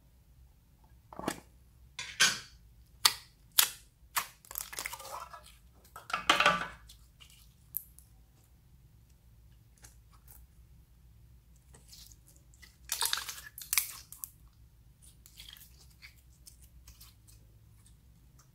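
Hands squeezing and squishing clear slime: irregular crackly squelches and small air-bubble pops, coming in bursts, with several sharp clicks in the first few seconds.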